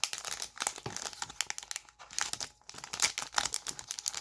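Foil wrapper of a hockey card pack crinkling and tearing as it is opened by hand, in a series of sharp crackles with a couple of short pauses.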